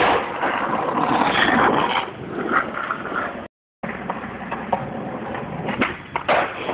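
Skateboard wheels rolling on asphalt, with sharp clacks of the tail popping and the board landing right at the start and again twice near the end. The sound cuts out for a moment midway.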